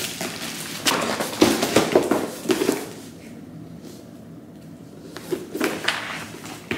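A parcel being opened by hand: crackling and rustling packaging with a run of sharp taps and knocks, which stop for a couple of seconds and pick up again near the end.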